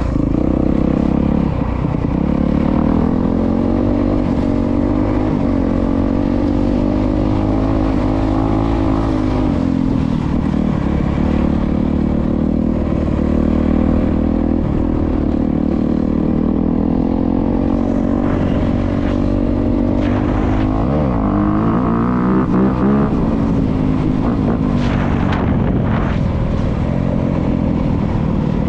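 Honda CRF250R dirt bike's single-cylinder four-stroke engine running under riding, its revs rising and falling repeatedly as the throttle is worked.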